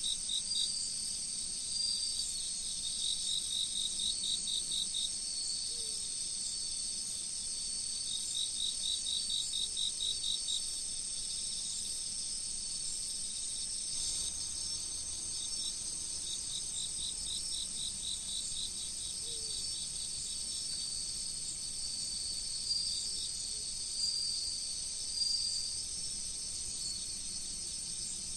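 Autumn crickets singing in chorus: a steady high-pitched trill underneath, with runs of rapid, evenly pulsed chirps from another insect that start and stop every few seconds.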